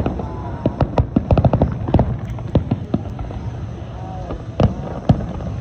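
Fireworks going off: irregular bangs and crackling pops, with a quick string of them between one and two seconds in and two single louder bangs near the end.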